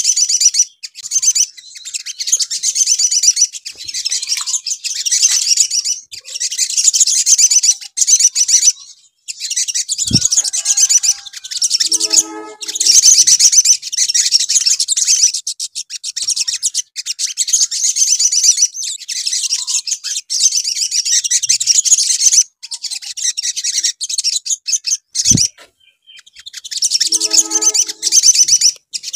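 Olive-backed sunbird (sogon) singing its full, continuous song: rapid, very high-pitched twittering in long phrases separated by short pauses. A soft low thump comes twice, and a brief lower-pitched sound cuts in twice.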